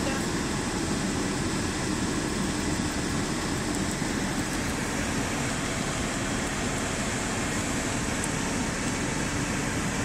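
A car's dashboard air-conditioning blower running, heard inside the cabin as a steady rush of air over the car's low running noise.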